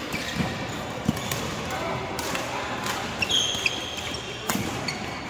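Indoor court game: sharp thuds from a ball and feet on a gym floor, a short sneaker squeak about three and a half seconds in, over background voices.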